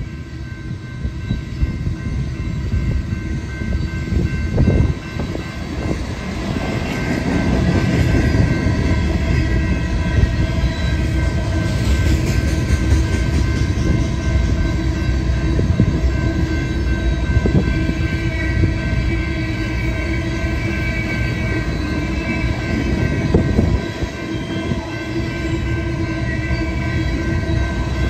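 Freight train cars rolling past at a grade crossing: a continuous rumble of steel wheels on rail with irregular knocks, and several steady high-pitched tones held over it. The rumble grows louder about six seconds in.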